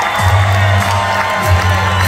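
Rock band playing live through a loud PA, with electric guitar, drums and a heavy bass line stepping between notes, over an arena crowd cheering.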